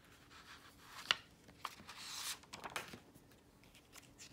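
Hardcover picture book being opened by hand and its pages turned. There is a sharp tap about a second in, then soft paper rustles and small clicks.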